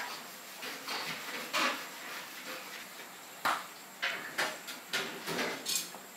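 Irregular clinks and knocks of dishes and utensils, with one sharp knock about three and a half seconds in.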